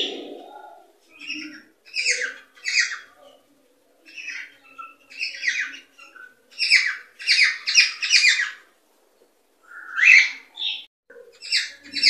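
Cockatiel calls: a run of short, chirping notes, some single, some in quick groups of up to four, with brief pauses between groups.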